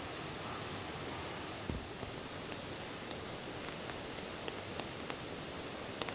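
Steady outdoor hiss with scattered faint ticks and clicks, and a soft knock a little under two seconds in.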